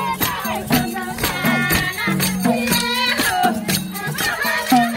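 Tharu folk dance music: a steady rhythmic beat with jingling, rattling percussion, and singing voices over it.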